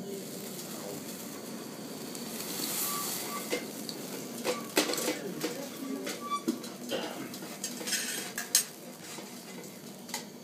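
Grand Marnier sizzling and flaming in a metal crêpe pan, with a rushing hiss that swells about two to three seconds in. After that, metal serving utensils clink and scrape repeatedly against the pan as the crêpes are worked in the flaming sauce.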